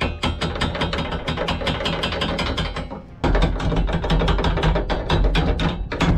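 Sailboat's anchor windlass working the anchor chain: links clicking over the gypsy in a quick, even ratcheting run, with a louder low drone from the windlass motor joining about three seconds in.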